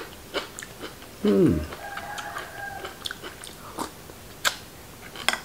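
Close-up chewing and biting of raw beef and liver, with wet mouth clicks throughout. About a second in comes a brief low sound falling in pitch, then a distant rooster crows for about a second.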